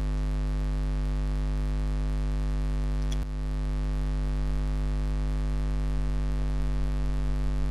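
Steady electrical mains hum with a buzzy stack of overtones and a hiss over it, picked up by the computer's microphone input. A single brief click comes about three seconds in.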